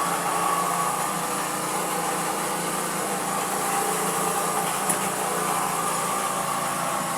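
Steady machine-like hum and hiss, with one sharp click about five seconds in.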